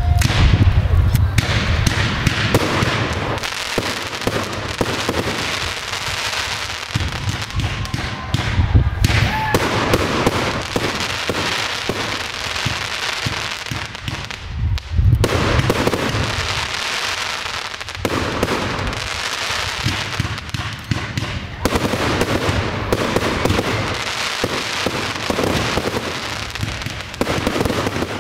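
Professional fireworks display: a dense, continuous crackle and pop of bursting shells and cakes, with deep booms every several seconds as heavier shells launch and break.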